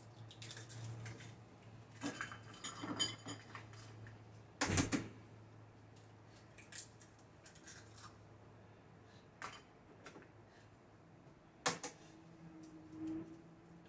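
Eggs being cracked open into a food processor bowl: scattered sharp taps and clicks of eggshell and small knocks against dishes, the loudest about five seconds in. A faint steady low hum lies underneath.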